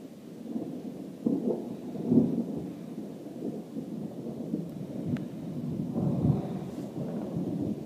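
Rolling thunder rumbling low and unevenly, swelling louder a little over a second in, again about two seconds in, and once more about six seconds in.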